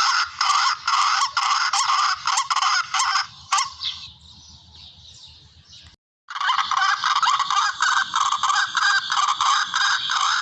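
Recorded barred rail (tikling) calls played as a hunting lure: a dense run of harsh, rapidly repeated notes. About three seconds in they fall away to faint calling, cut out briefly, then resume at full strength.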